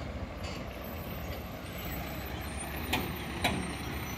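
Steady low outdoor rumble, with two sharp clicks about half a second apart near the end.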